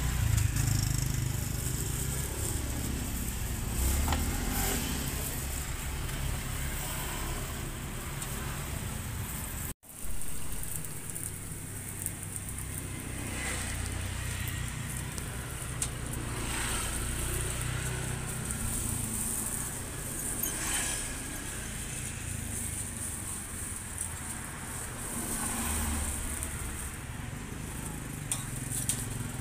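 Beef lumpia frying on an oiled flat iron griddle, a steady sizzle with a few clicks of metal tongs, over a low rumble of street traffic. The sound drops out for a moment about ten seconds in.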